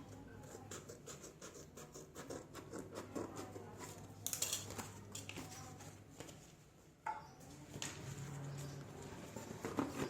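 Quick, repeated scratching and tapping from hand work on a part, with a louder rasp about four seconds in and a sharp knock about seven seconds in.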